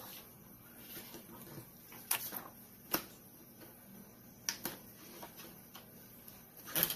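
Clear plastic stamp and its plastic backing sheet being handled: light crinkling and crackling of plastic film with a few sharp clicks, the loudest near the end.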